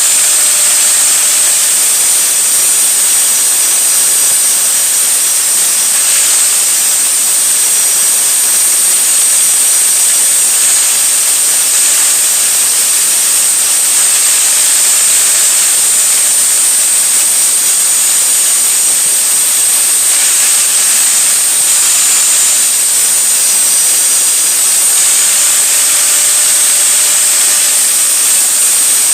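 A grinder running steadily while it grinds the cutting edges of a Flymo electric lawnmower blade to sharpen them. The sound is a loud, even grinding hiss with a high whine held throughout.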